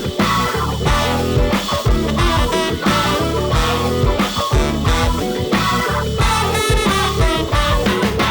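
Upbeat rock background music with a steady beat and guitar.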